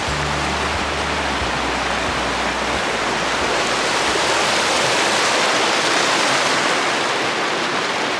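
Mountain stream cascading over rocks: a loud, steady rush of white water.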